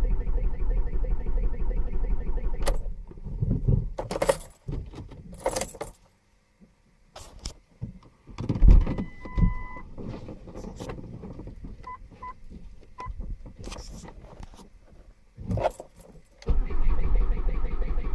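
Ford Mondeo engine cranking on the starter without catching, the sign of a car that won't start. The cranking stops a few seconds in, keys jangle and click in the ignition with a held beep and a few short beeps, and the cranking starts again near the end.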